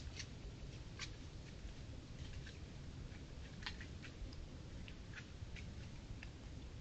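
Deer moving and feeding in dry weeds, heard faintly as scattered irregular clicks and rustles of stems and leaves over a trail camera's steady low hiss.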